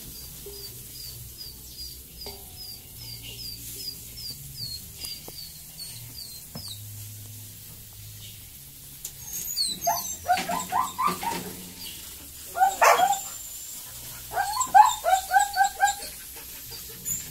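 Loud runs of short, sharp animal calls, about four a second, in three bursts starting about ten seconds in. Before them, a thin high chirp repeats about three times a second for six or seven seconds.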